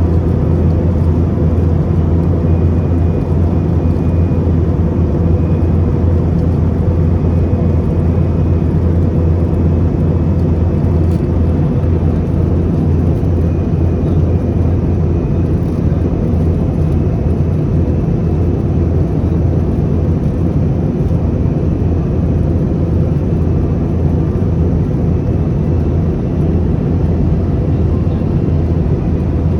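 Steady in-flight cabin noise of an airliner: a constant low drone with an even rush over it, unchanging in level.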